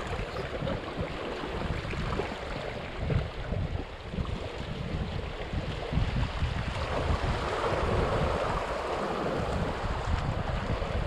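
Sea waves washing on the shore with wind buffeting the microphone; a louder wash of surf comes about seven seconds in and fades over a couple of seconds.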